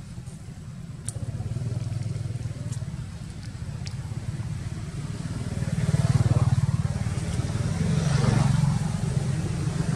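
A motor vehicle's engine running steadily, growing louder about a second in and loudest around six to eight seconds in.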